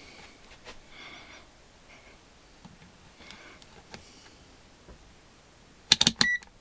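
Handling noise from work on the pulse motor's wiring: faint scattered clicks and rustles, then near the end a quick cluster of loud sharp clicks and a short high beep.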